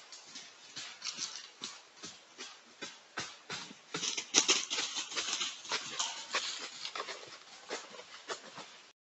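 An animal moving right at a trail camera: a run of irregular rustling, crackling sounds, busiest and loudest about four to six seconds in.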